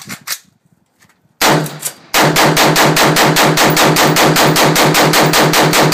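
AR-15 rifle firing .223 rounds: a single shot about a second and a half in, then rapid, evenly spaced shots at about six a second.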